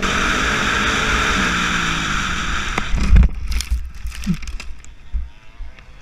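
Honda CRF250R dirt bike's single-cylinder four-stroke engine running under way, with wind buffeting the helmet microphone. About three seconds in, a heavy thump and a clatter of scraping and knocking as the bike goes down in a fall. The engine is no longer heard afterwards.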